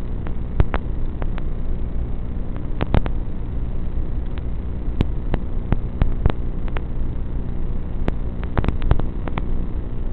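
Steady low buzz and hiss with frequent sharp crackles and clicks, the static of an analog FPV video link's empty audio channel as recorded by the goggles' DVR.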